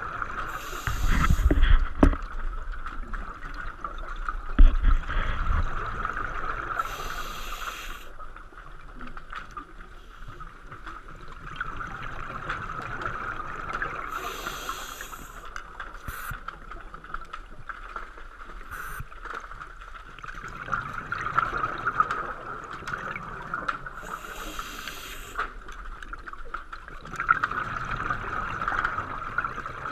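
Scuba diver breathing underwater through a regulator: a hiss on each breath about every seven seconds, with bubbles gurgling between. A couple of dull bumps in the first few seconds.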